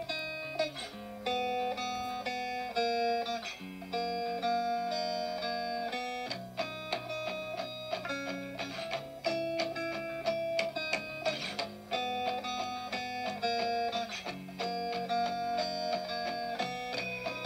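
Instrumental background music: a plucked guitar melody played in a steady run of notes.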